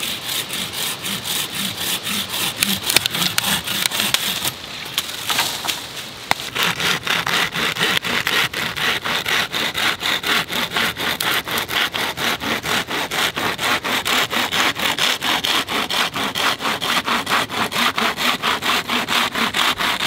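Saw blade in a homemade green-wood bow saw frame cutting wood in quick, even back-and-forth strokes: first through a live sapling, then, after a short break about five seconds in, through a downed log.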